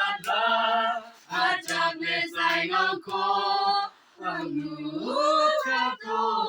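A group of voices singing, holding long notes, with two short breaks between phrases.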